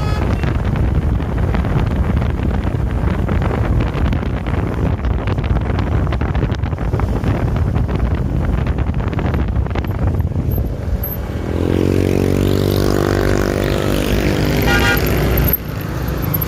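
Road noise and low rumble of a passing bus, then about twelve seconds in a long, steady bus horn note lasting a few seconds.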